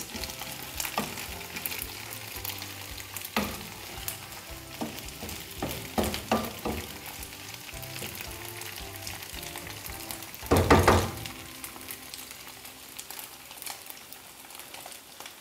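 Bread halwa frying in oil in a nonstick pan, sizzling steadily while it is roasted until the oil separates, with a wooden spatula scraping and knocking on the pan every few seconds; the loudest stir comes a little after ten seconds in.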